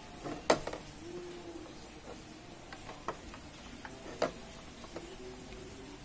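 A few light plastic clicks and taps as a bulb socket is worked into a Yamaha Mio's tail-lamp housing to seat it, the sharpest about half a second in.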